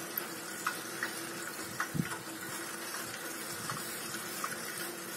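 Bicycle rolling along asphalt: a steady hiss of tyres and passing air, with a few light clicks and rattles and one knock about two seconds in.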